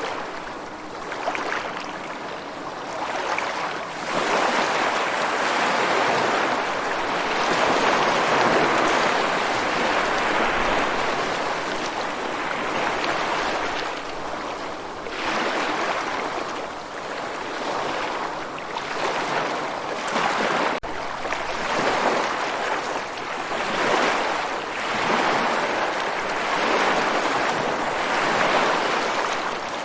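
Ocean waves breaking and washing on a shore. The surf swells and eases again every few seconds.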